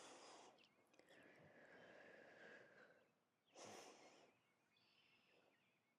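Near silence with a person's faint breathing during a held yoga pose, the clearest breath about three and a half seconds in.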